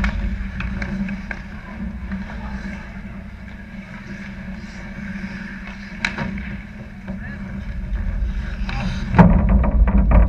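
Ice hockey play heard from a camera on the goal net: skates scraping and sticks clacking during a scramble in front of the net, with players' voices. There is a sharp crack about six seconds in, and near the end a sudden loud knock followed by rapid clattering.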